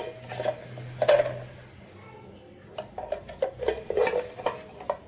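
A spoon clinking and knocking against stainless steel kitchen vessels while spice powder is scooped: a few light clicks near the start, then a quicker run of knocks in the second half.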